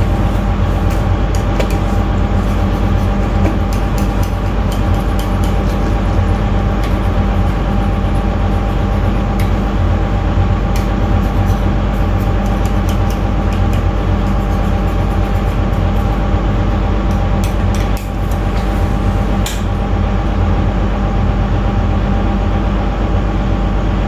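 A loud, steady machine drone with a low hum, over light scratching clicks from a tool scraping old RTV gasket maker off the oil pan's sealing edge. The drone dips briefly about three-quarters of the way through.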